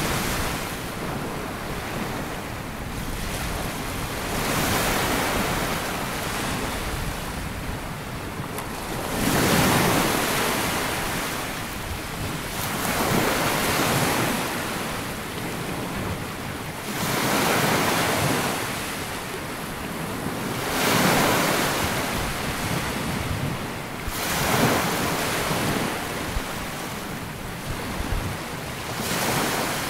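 Sea waves breaking and washing up a sandy beach, the surf swelling and falling back every three to four seconds.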